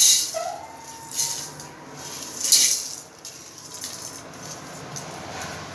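Whole dry spices (coriander, cumin and fennel seeds, peppercorns) rattling as they are tipped by hand off a steel plate into a pan for dry roasting, in three short pours over the first few seconds.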